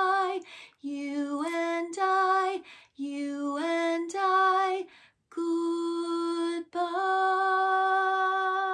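A woman singing a children's goodbye song solo and unaccompanied, in short phrases with brief pauses, ending on a long held note.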